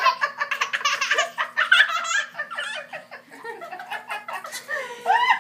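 A toddler laughing in quick repeated bursts while being tickled, loudest in the first couple of seconds and softer after that.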